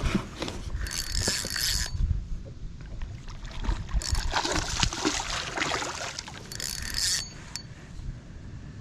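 Water splashing and knocks against a kayak in irregular bursts as a big hooked bass is fought up to the boat.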